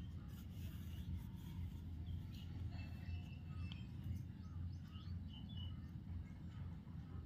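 Faint handling of a metal chandelier as an LED bulb is screwed into its socket by hand, giving a few soft clicks over a low steady hum, with faint high chirps in the background.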